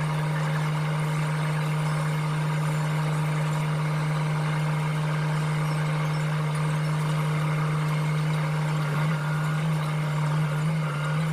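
An engine running steadily at one constant pitch, wavering slightly near the end.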